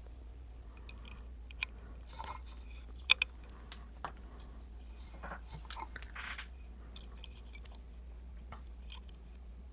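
Lock pick and tension wrench working the pins of an Emhart Black Belt pin-tumbler lock: scattered small clicks and scratches, with a sharper click about three seconds in. A low steady hum runs underneath.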